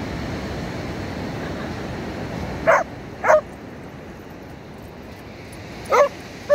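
A dog barking: two short, sharp barks about two and a half seconds in, and two more near the end, over a steady rush of surf and wind that eases after the first barks.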